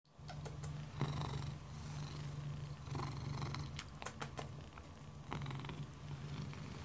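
Black domestic cat purring steadily, a low pulsing purr that swells and eases about every two seconds. A few light clicks about four seconds in.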